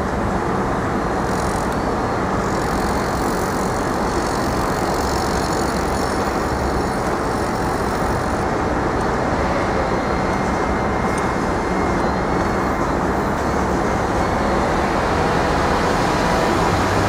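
Steady road traffic noise: a continuous hum of passing cars and trucks with no single vehicle standing out.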